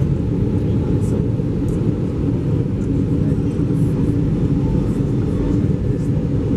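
Steady cabin noise inside an Airbus A320 in flight: a low rumble of engines and airflow with a faint constant hum, unchanging throughout.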